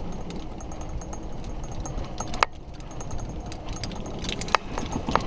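Golf cart moving across grass: a steady low rumble, with a sharp rattling knock about two and a half seconds in and a couple more near the end.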